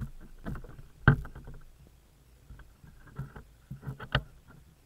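Irregular knocks and bumps on the RC boat's hull, picked up by its on-board camera while the boat is handled on the bank, with the sharpest thump about a second in and a few more near the end. The 26cc two-stroke engine is not running.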